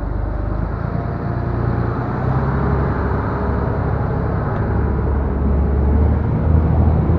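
Fishing boat's engine running as the boat gets under way, a low drone that grows steadily louder.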